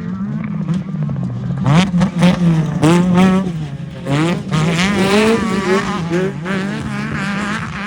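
Off-road race vehicle engines revving hard, the pitch swinging up and down rapidly again and again, over a steady engine drone. The revving is loudest from about two to three and a half seconds in and again around five seconds in, then eases off near the end.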